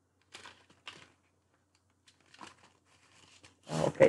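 A few short rustles and crinkles of paper-and-card packaging as a jewellery card with a circle necklace is slid out of a small striped gift box.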